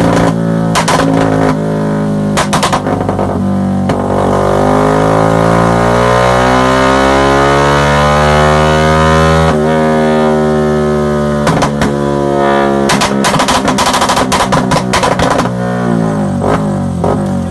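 Modified Yamaha Y15ZR (MX King 150) single-cylinder four-stroke engine through an aftermarket exhaust with a rumble-idle tune. It pops and crackles at first, then revs climb steadily for about five seconds and drop suddenly, followed by a long run of rapid exhaust pops and crackles as the revs fall back to a lumpy idle.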